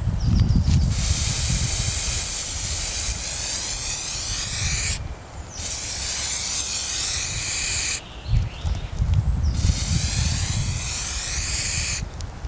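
Hissing spray in three long bursts, each lasting a few seconds, with short breaks about five and eight seconds in.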